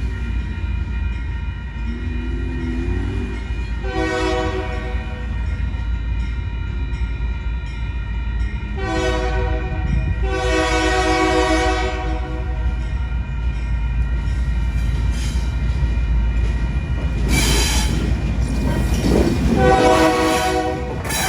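Locomotive air horn sounding four blasts, the third the longest, over the steady rumble of a train running on the rail line.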